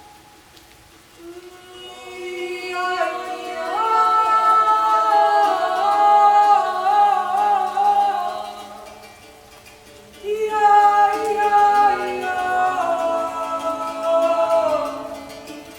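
Several voices singing a wordless a cappella improvisation in long held notes that shift slowly against one another, in two phrases with a short gap between, over a low sustained note.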